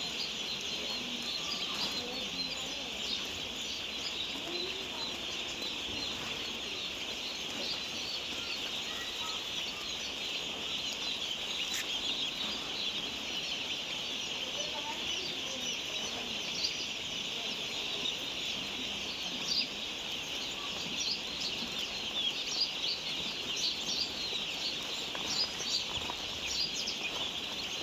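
A large flock of chicks peeping all at once in a poultry shed: a steady, high chorus of many overlapping peeps.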